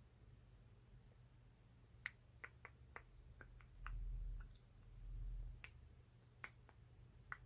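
Quiet, irregular sharp clicks and taps on a lip gloss container, about a dozen scattered from about two seconds in. Two low, muffled rumbles in the middle, each about half a second long, are the loudest sounds.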